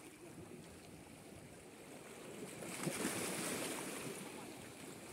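Sea water washing against shoreline rocks, a wave surging up and easing off about three seconds in.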